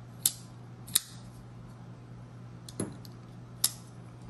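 Kizer Feist XL front-flipper folding knife being flicked open and snapped shut on its bearings: about four sharp metallic clicks, spaced irregularly.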